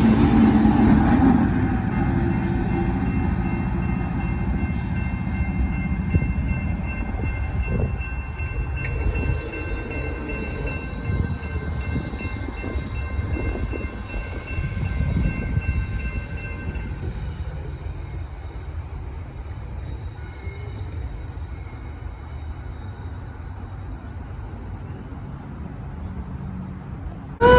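Empty Union Pacific rock train rolling on the rails, a steady low rumble of wheels and cars that slowly fades as the train moves away.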